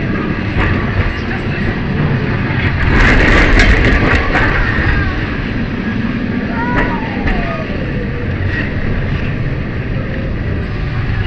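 Lisbon Tram 28 streetcar running along its rails, a steady rumble and rattle that gets louder about three seconds in, with passengers talking.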